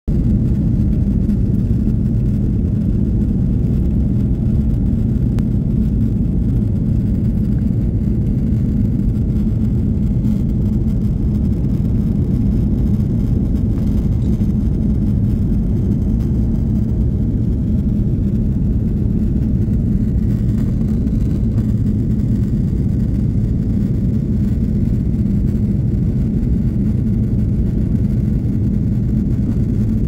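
Jet airliner cabin noise in flight: a steady low rumble of engines and rushing air, heard inside the cabin.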